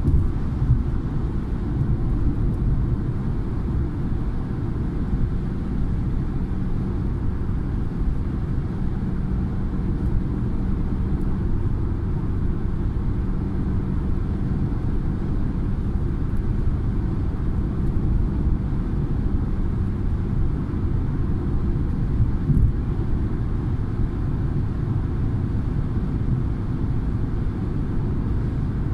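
Steady low rumble of tyre and engine noise heard from inside a car cruising on a motorway, with a faint even engine hum.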